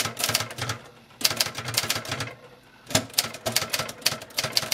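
Olivetti Diaspron 82 office typewriter being typed on: quick runs of key strikes, several a second, broken by two short pauses.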